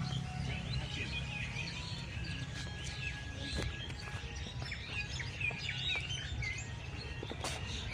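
Many small birds chirping and calling together in a chorus of short, overlapping high notes and quick slurs, over a low steady hum, with two sharp clicks, one midway and one near the end.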